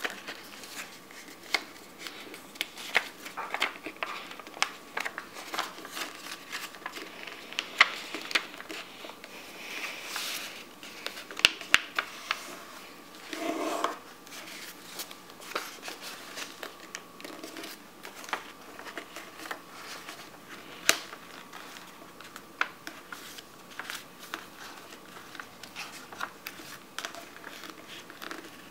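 A sheet of origami paper being folded and creased by hand on a tabletop. It crinkles irregularly, with sharp crackles as the folds are pressed flat.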